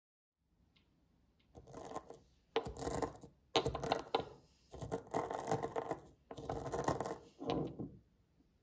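Spice seeds being ground coarsely with a pestle in a stone mortar: gritty crunching and scraping in about six bursts, one per round of grinding.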